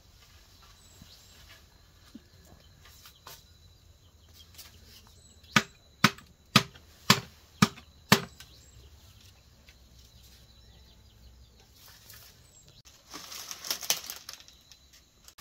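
Six sharp strikes in a row, about two a second, then a short burst of rustling near the end.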